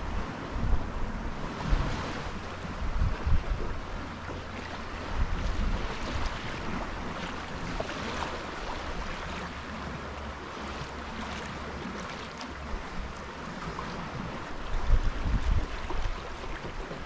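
Wind gusting on the microphone in irregular low rumbles, over a steady wash of choppy water running along the hull of a small Primaat sailboat under sail.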